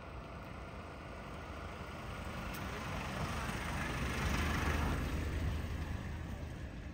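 A road vehicle passing by: a broad rushing noise with a deep low end that swells for a few seconds, is loudest a little past the middle, then fades away.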